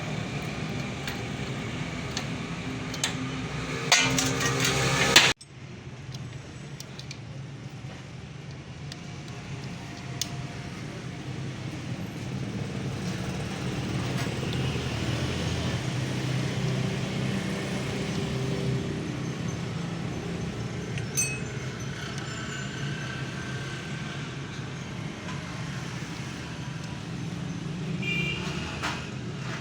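Steady background of road traffic and engine hum, with a few sharp metallic clinks of tools on the motorcycle about four to five seconds in, and the sound cutting off abruptly just after them.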